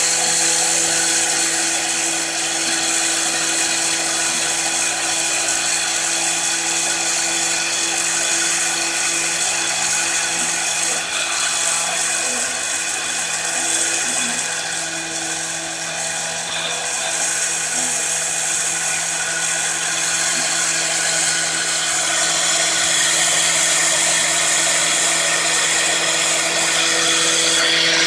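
A high-speed electric power tool motor running steadily with a high whine and hiss, easing off slightly about halfway through before picking up again.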